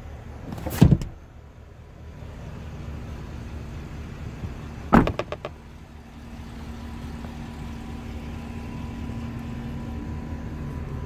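Two heavy door thuds from the truck, about a second in and about five seconds in, the second a door slamming shut with a quick rattle of clacks. After that the 6.2-litre V8 of a 2017 Chevrolet Silverado 1500 idles with a steady low hum that grows louder toward the end.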